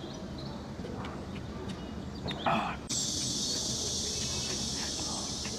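Close-up eating sounds of a person eating from a bowl with chopsticks: wet chewing and slurping with small clicks. About three seconds in, a steady high hiss starts suddenly and runs on under it.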